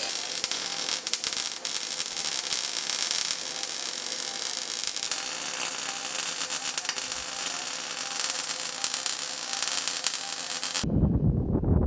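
Wire-feed welder arc crackling and hissing steadily as a bead is laid on a steel bracket. It cuts off about a second before the end, and a low rumble takes over.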